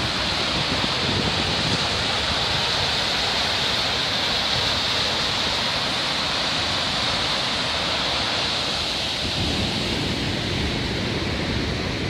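Waterfall on the river above Skógafoss, its water falling into the gorge with a steady rushing noise; a low rumble grows stronger about nine seconds in.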